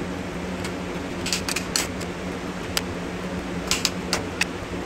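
Light metallic clicks and clinks from steel C-clamps and a T-handle tool being handled on a steel welding jig, bunched about a second in and again near the end, over a steady background hum.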